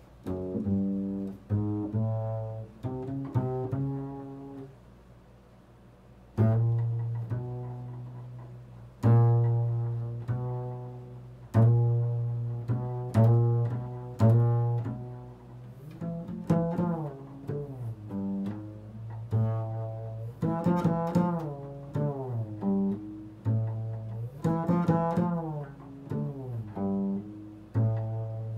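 Improvised instrumental music: low plucked string notes, each starting sharply and ringing away, with a short gap about five seconds in and quicker notes in the second half.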